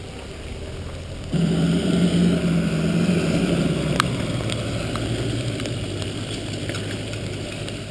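A 4WD vehicle's engine comes in suddenly about a second in and keeps running loudly, its pitch slowly sinking over the next several seconds. A single sharp click about four seconds in.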